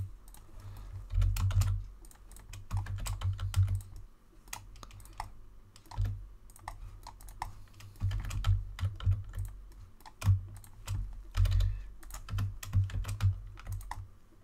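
Computer keyboard typing in irregular flurries of keystrokes with short pauses between them, each flurry carrying a dull low thud.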